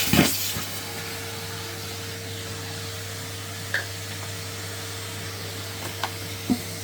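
Henry cylinder vacuum cleaner running steadily with an even whine, and a thump just after the start with a few lighter knocks later, as it is pushed about.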